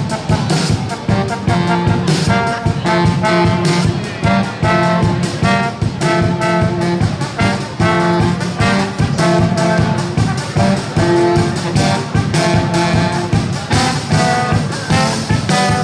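Brass band playing a lively tune: horns holding chords and phrases over a steady drum beat.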